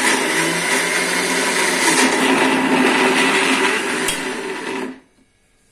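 Electric mixer grinder running steadily on its lowest speed, grinding peanuts with a little oil into crunchy peanut butter. It is switched off and stops about five seconds in.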